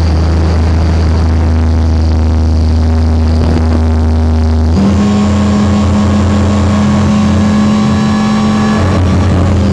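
Electric RC helicopter (Align T-Rex 500) motor, drivetrain and rotor heard up close from the onboard camera: a loud, steady drone with a whine. About halfway through, the tone shifts and a higher whine comes in, as the power or rotor load changes in flight.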